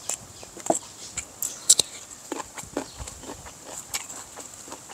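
Close-miked eating sounds: chewing and mouth smacks of fried small fish and rice eaten by hand, an irregular run of short clicks and crunches.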